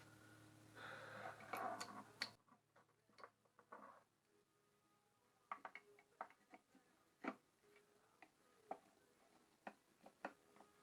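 Faint scattered clicks and taps of small drill parts being handled on a workbench. A short rustle comes about a second in. A low background hum cuts off abruptly after about two seconds.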